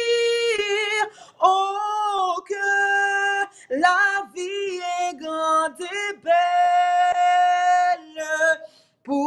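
A woman and a man singing a slow French hymn, with long held notes broken by short pauses for breath.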